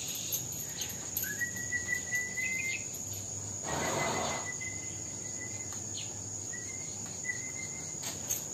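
Steady high-pitched insect drone, with a thin, long, whistle-like tone that comes and goes and a short breathy rush about four seconds in.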